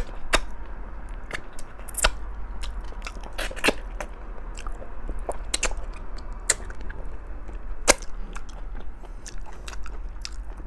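Close-miked chewing of stewed pork trotters: irregular sharp, wet mouth clicks and smacks, several a second, over a steady low hum.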